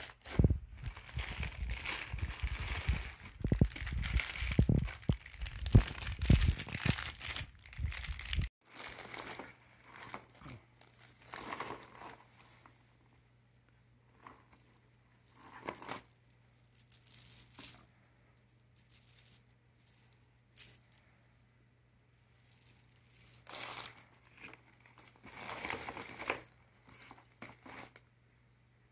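Rustling and crinkling of plastic wrapping and cardboard as hands rummage through a parcel of bead necklaces and bangles. The sound is dense and continuous for about the first eight seconds, stops abruptly, and then comes only in short scattered bursts of handling.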